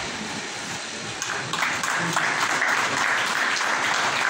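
An audience applauding. The clapping builds up about a second and a half in and then holds steady.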